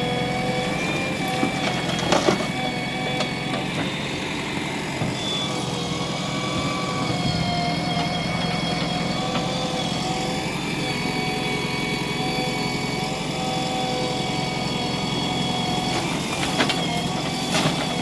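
Diesel engine of heavy earthmoving machinery running steadily under work, its pitch shifting slightly. There are a few sharp knocks about two seconds in and twice near the end.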